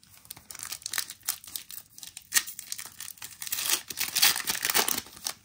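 Foil Pokémon card booster pack wrapper crinkling and tearing as it is torn open and handled, a run of quick irregular crackles that grows louder in the second half.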